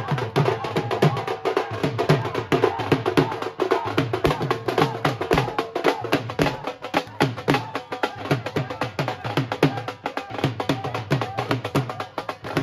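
Dhol drum beaten with sticks in a fast, driving rhythm, with a wavering tune above the drumming.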